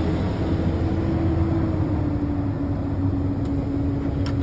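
Excavator's diesel engine running steadily with a low rumble and a continuous whine that drops slightly in pitch.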